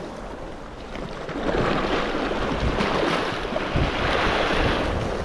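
Sea waves washing and foaming against the rocky shoreline, the surge swelling up about a second and a half in and again near the end.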